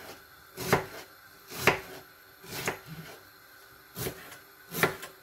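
Kitchen knife dicing an onion on a wooden cutting board, the blade knocking on the board about once a second, five times.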